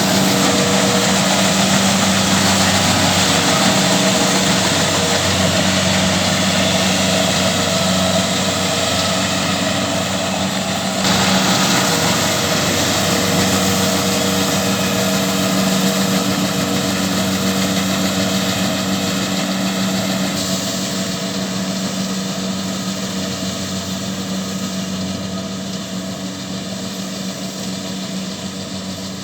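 Kubota DC70Plus rice combine harvester running steadily at working speed, its diesel engine hum under a broad mechanical noise; it grows slightly fainter in the last third.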